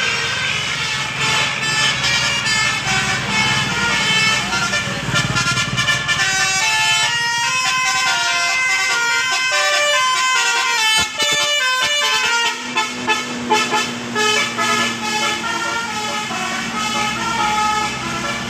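Bus 'Basuri' telolet musical air horn playing a quick tune of short stepped notes. A bus engine rumbles underneath through the first several seconds.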